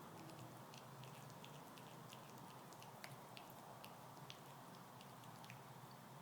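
A small dog gnawing on a wooden stick: faint, irregular crunching clicks as its teeth bite into the wood.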